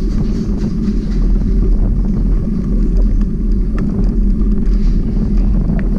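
Steady low rumble of wind buffeting the microphone of a camera riding on a moving bicycle, with a few faint light clicks from the bike.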